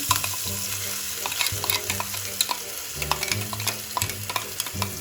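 Onion, garlic, ginger and green chilli paste sizzling in hot oil in a pan, stirred with a spoon that gives frequent short scrapes and clicks against the pan.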